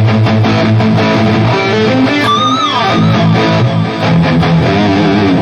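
Electric guitar played through the Valeton GP200 modeler's Powerball high-gain amp model at stock settings, with no added EQ: a distorted riff of held chords and notes, with one note bent up and let back down about two and a half seconds in.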